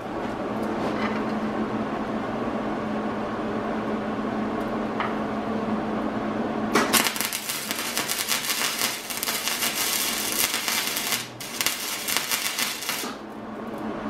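A steady low hum, then about seven seconds in an arc welder strikes up and crackles steadily for about six seconds, with a short break near the end, as it welds a steel rebar handle onto the furnace's steel shell.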